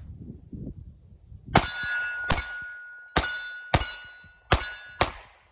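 Six shots from a Taurus GX4 9mm pistol, the first about a second and a half in, then at intervals of about half a second to a second. Most shots are followed by a steel target plate ringing from the hit, each ring dying away before the next shot.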